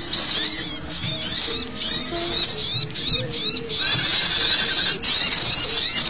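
An excited chorus of small songbirds, the sunbirds and white-eyes of a bird-luring call track, giving high arched chirps several times a second. Denser bursts of rapid chatter come about two seconds in, four seconds in and near the end. Short low steady notes sound underneath.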